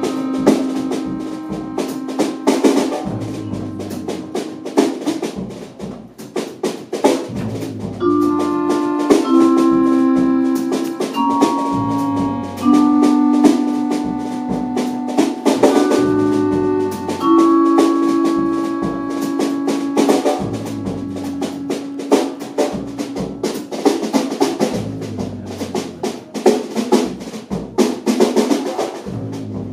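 Live small jazz group playing: a drum kit with busy snare and rim strokes, an accordion holding a series of chords that change every second or two, and a double bass underneath.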